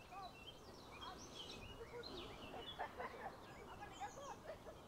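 Many birds calling at once: short overlapping chirps and whistles, some low and some high, over a faint background rumble.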